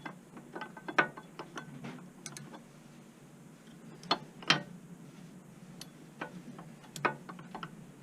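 Irregular metallic clicks and clinks of brake pads and their retaining spring being handled and seated in a Honda ST1100's rear brake caliper, with the sharpest knocks about a second in, twice between four and five seconds in, and again about seven seconds in.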